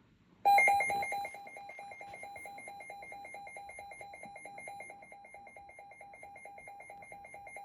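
Emergency alert attention tone: a rapid electronic beeping on two pitches, one lower and one higher, starting about half a second in and loudest at first. It signals that a broadcast tornado warning follows.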